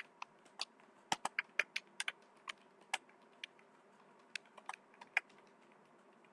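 Typing on a computer keyboard: quiet, irregular keystroke clicks as a short line of text is typed, quickest in the first couple of seconds and sparser after.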